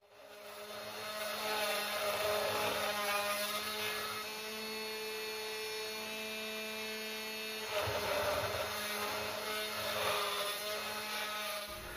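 Small spindle motor (about 100 W) of a hobby CNC mill running at a steady pitch as a 3 mm end mill cuts aluminium, a whine of several steady tones with rougher cutting noise swelling about 8 and 10 seconds in.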